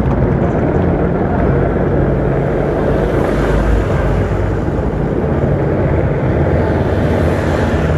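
Engines of police escort motorcycles riding toward and past the roadside in a column, over road and traffic noise: a steady low engine hum that swells about three seconds in and again near the end as bikes draw close.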